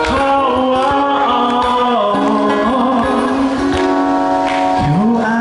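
A man singing a melody into a microphone while strumming his ukulele, his voice holding and sliding between long notes.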